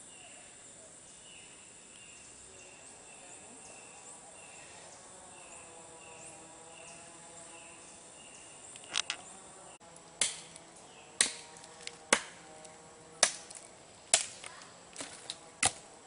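Rainforest riverside ambience: a faint high chirp repeats a little under twice a second. From about ten seconds in comes a run of sharp knocks, roughly one a second, which are the loudest sounds.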